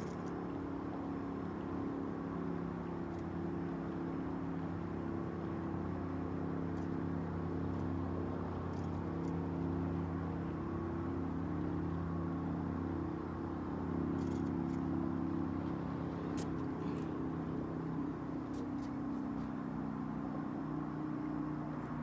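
Boat engine running at low speed close by, a steady low drone that wavers slightly and swells a little partway through. A few faint clicks come near the middle.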